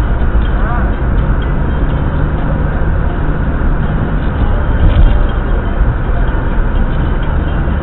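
Steady road and engine noise of a car driving along a city street, heard from inside the cabin through a dashcam microphone. A short knock about five seconds in.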